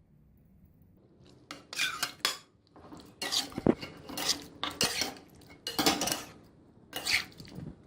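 Bone-in chicken pieces being put into a pan of boiling water, with a metal utensil clattering and clinking against the pan. It comes as a run of irregular knocks starting about a second and a half in.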